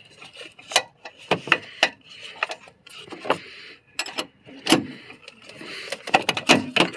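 Metal clicks and knocks of a long socket extension with a 10 mm socket being fitted and turned by hand on a bolt inside a plastic airbox, scraping and tapping against metal and plastic. The clicks come irregularly, a few a second.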